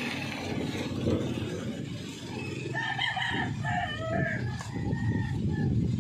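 A rooster crowing once, a drawn-out, broken call beginning about three seconds in and lasting around two and a half seconds, over a steady low background rustle.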